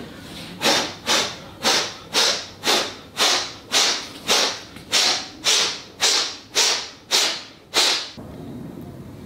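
Regular sharp, noisy strokes of a hand tool worked along wood, about two a second, each one fading quickly. About fourteen in all, stopping about eight seconds in.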